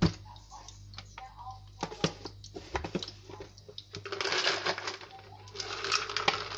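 Dried red chillies crackling in hot mustard oil in a wok: a run of sharp pops and clicks, with two stretches of denser sizzling, one about four seconds in and one near the end.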